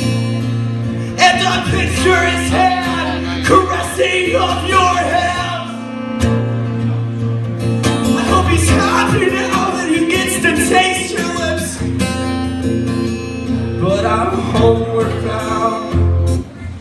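Live acoustic band music: acoustic guitars playing with a singer's voice over them.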